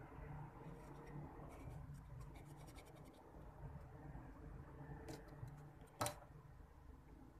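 Metal spoon scraping and spreading thick acrylic paint on a wood panel: faint, with a quick run of fine scratches, then a single sharp tap near the end.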